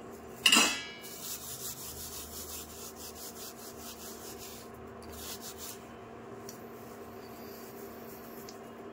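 Dried fenugreek leaves (kasuri methi) crushed and rubbed between the palms, a dry crackling rustle. It starts with a sharp rustle about half a second in and fades out over the next five seconds or so.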